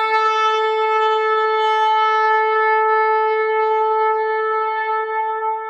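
A single long horn blast held on one steady note, getting slightly fainter near the end.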